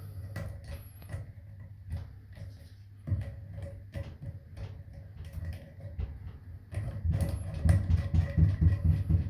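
Handling noise of a shower head being screwed onto its hose by hand: scattered small clicks and rubbing, with heavier rustling near the end.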